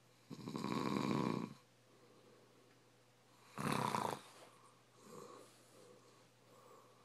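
A man snoring in his sleep: a rattling snore lasting about a second, then a shorter, breathier one about three and a half seconds in.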